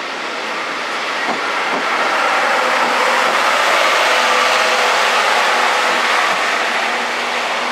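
Blue passenger coaches rolling slowly past at close range: a steady rumble and hiss of wheels on rail with a few clicks over rail joints and a faint squeal, swelling toward the middle and easing as the last coach pulls away.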